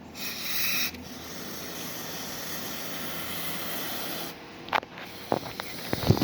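Aerosol electronics contact cleaner hissing from the can: a short spray, then a longer steady spray of about three seconds that cuts off sharply, washing a corroded circuit board. A few sharp clicks and knocks follow near the end.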